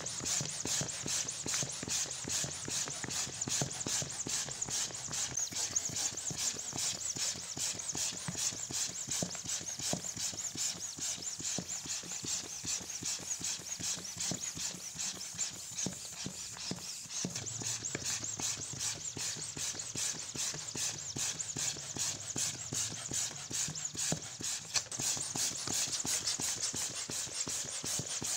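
Electric balloon pump running steadily and blowing air into a balloon: a continuous rapid fluttering hiss over a low hum.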